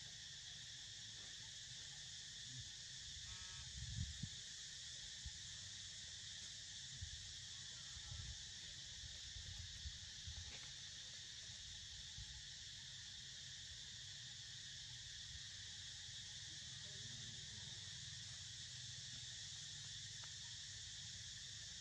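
Steady, high-pitched insect chorus over a low rumble, with a few short low thuds about four seconds in.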